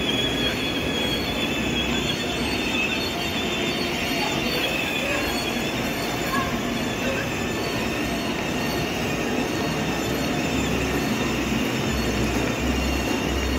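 Children's battery-powered ride-on toy motorcycle driving over a tiled floor: a steady whine from its electric motor and gearbox over the rumble of its hard plastic wheels.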